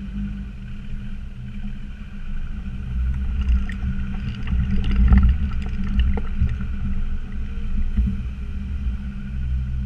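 Land Rover Discovery Td5's five-cylinder turbodiesel engine running steadily while driving, with scattered knocks and rattles in the middle.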